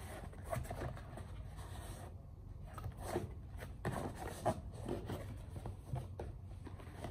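Cardboard box being opened and handled: scattered light scrapes and rustles as the lid and folded cardboard flaps slide and bend.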